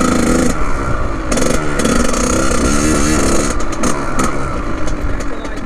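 Kawasaki KX100 two-stroke single-cylinder dirt bike engine being ridden, its note rising and falling several times as the throttle is opened and closed through the gears.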